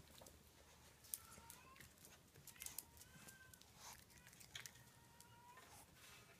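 Faint clicks and rattles of a ball in a plastic circular track toy as a cat bats at it, the sharpest click about a second in, with a few short, faint high tones between them.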